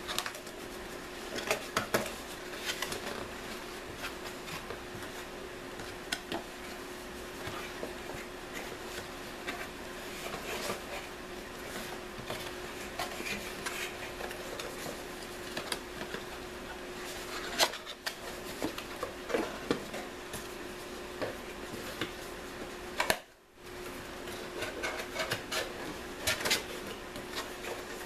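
Cardboard Loot Crate box being unfolded and turned inside out by hand: irregular scrapes, rubs and taps of the cardboard, over a steady faint hum.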